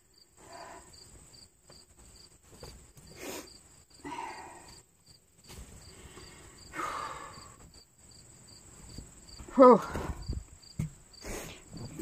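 Insects chirping steadily: a continuous high trill with a regular pulsed chirp about three times a second. Over it, fabric rustles as a zip-up jacket is pulled off, and about ten seconds in comes a short voice-like sound with a falling pitch, the loudest thing here.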